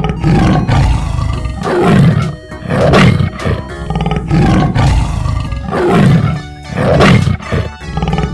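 Tiger roaring and growling: about six rough, deep roars in a row, roughly a second apart.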